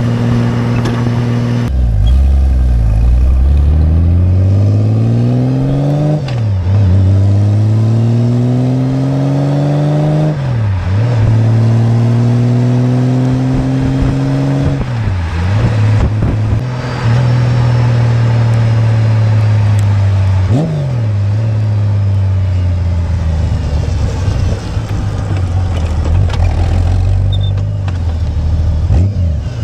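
2002 Honda Gold Wing's flat-six engine heard from just behind its exhaust pipes as the bike pulls away and up through the gears. The pitch climbs and drops sharply at each of about four upshifts, then holds mostly steady at cruising speed, with road and tyre noise underneath.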